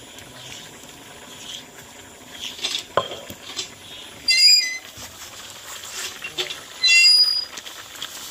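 Handling of a stone spice-grinding slab and block, with a single knock about three seconds in as the block is set down. Two short, loud chattering bird calls cut in about four and seven seconds in.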